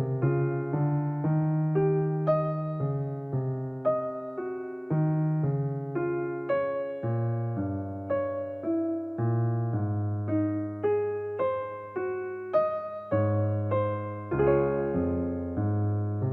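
Background music: an electric piano playing a slow, gentle melody over chords, each note striking and fading.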